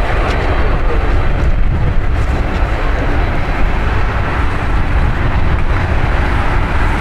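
Boeing 787-9 airliner on final approach, its jet engines a steady low rumble.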